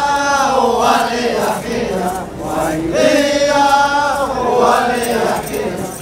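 A group of voices singing together in a chant-like song, with long held notes that slide in pitch, sung in phrases with short breaks between them.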